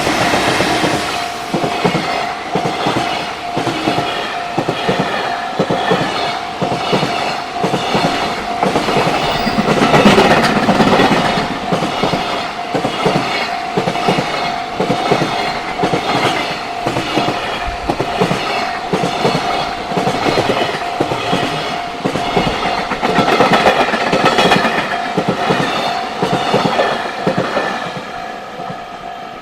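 Freight train passing at speed, its wagons' wheels clattering over the rail joints in a steady rhythm. A steady tone sounds alongside it and stops near the end, as the clatter fades.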